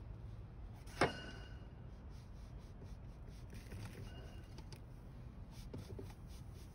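Freshly ground cornmeal poured from a metal bucket into a plastic box: a faint, soft scratchy hiss over a low steady rumble, with one sharp knock about a second in.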